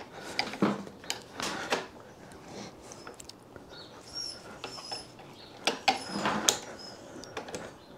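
Scattered light clicks and knocks of hands and a metal T-handle puller working at the top of a Yamaha YJ2's front fork, drawing the fork tube up, with a few faint high chirps in the middle.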